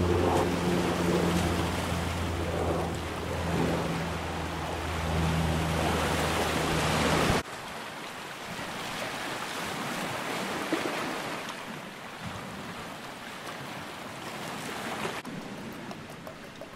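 A low-flying aircraft passing over the sea, its engines a steady low drone over the surf, which cuts off abruptly about seven seconds in. After that, sea waves wash on a pebble shore, with wind on the microphone.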